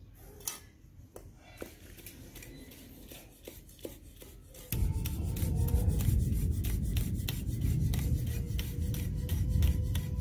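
Steel cleaver chopping green and red chillies on a wooden chopping block: scattered knocks at first, then about five seconds in a quick, steady run of strokes, about five a second. A loud low rumble comes in with the fast chopping.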